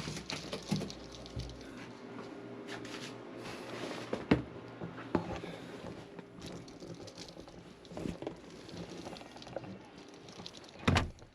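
Rustling and scattered light taps and knocks from materials being handled, over a faint steady low hum, with one sharper knock near the end.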